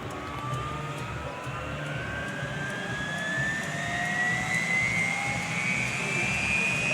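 Bell UH-1H Huey helicopter's Lycoming T53 turboshaft engine spooling up during startup, its turbine whine rising steadily in pitch and growing louder over a low rumble.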